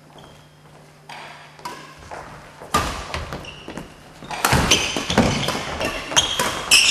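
Doubles play in a large hall: a run of sharp hits, thuds and footfalls with short high squeaks. It grows busier and louder from about halfway through.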